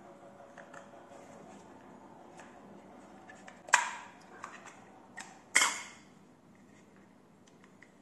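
Two sharp plastic clicks, about two seconds apart, as the black plastic shell of a charging dock's watch-charger stand is unclipped and pried apart, with light handling noise between them.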